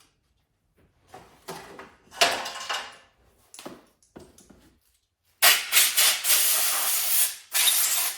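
Compressed air hissing from a blow gun: a few short bursts, then one long loud blast lasting over two seconds with a brief break near the end.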